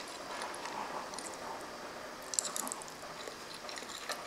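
A person chewing a mouthful of Italian sausage lasagna close to the microphone: wet chewing and smacking clicks, with a quick cluster of them a little past halfway.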